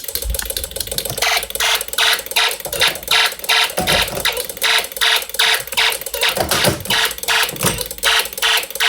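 Fire alarm sounding after a pull station is activated: a harsh, rapid pulsing at about three pulses a second over a steady tone.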